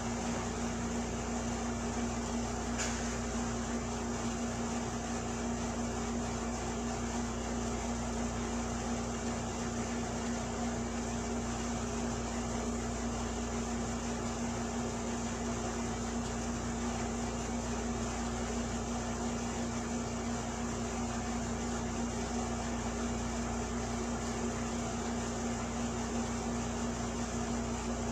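Steady background hum: an even hiss with a constant low tone, like a running fan or appliance, unchanging throughout, with one faint click about three seconds in.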